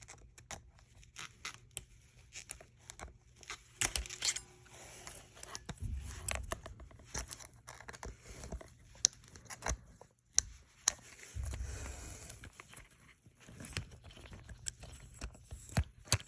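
Plastic airbag wiring connector being worked loose from its housing with a flat screwdriver and fingers: scattered sharp plastic clicks and scraping, with a few dull handling bumps.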